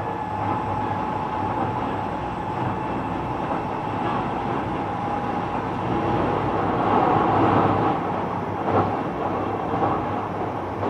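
Kobe City Subway 6000-series electric train with Hitachi hybrid-SiC drive running along the line, heard from inside the car: a steady rolling rumble with a constant tone and a few short wheel clacks over rail joints near the end.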